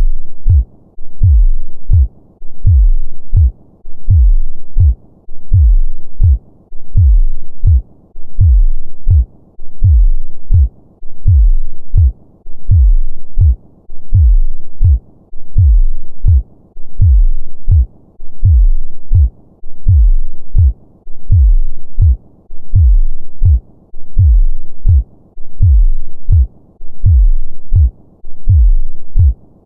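A normal human heartbeat: steady lub-dub double thumps repeating evenly about every second and a half, low and heavy.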